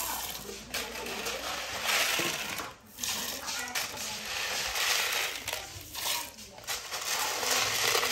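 Dry red beans poured into a pot of water in an aluminium cooking pot, a dense pouring rattle and splash that comes in several pours with short breaks about three and six seconds in.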